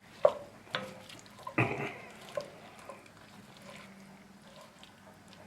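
Scattered light knocks and clatters of things being handled, the fullest a short clatter about a second and a half in, over a faint steady hum.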